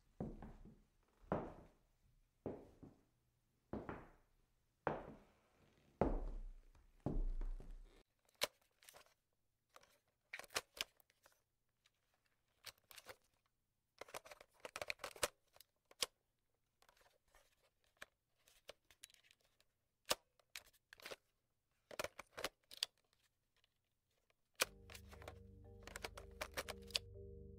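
Slow, evenly spaced dull thuds about once a second, each dying away, then scattered faint crackling clicks. Music with steady held tones comes in near the end.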